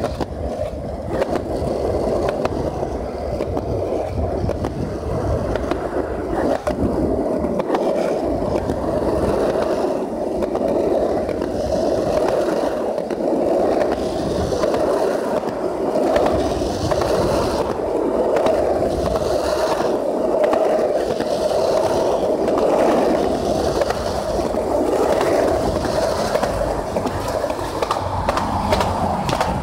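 Skateboard wheels rolling over a concrete sidewalk, a steady rolling noise.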